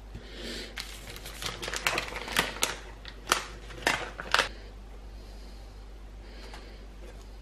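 Plastic packaging of smoked salmon slices crinkling and crackling as it is handled, with a run of sharp, irregular crackles and clicks in the first half.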